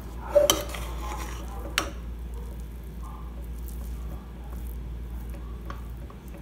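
A metal ladle stirring and turning cooked biryani rice in an aluminium pressure cooker: soft, squishy scraping and rustling of the rice, with a couple of sharp clinks of the ladle against the pot in the first two seconds.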